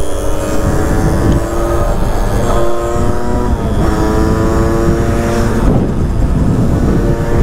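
Small motorcycle engine accelerating through the gears: its note rises, drops at a shift about two and a half, four and six seconds in, and rises again. Wind rushes on the microphone throughout.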